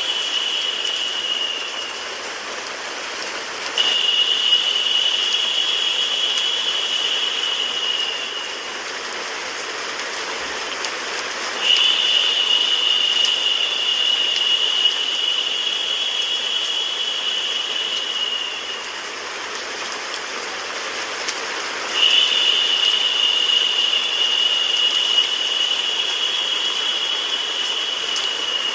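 Steady rain and white-noise hiss. A higher, narrower hiss comes in abruptly and fades out again, several seconds at a time, four times over.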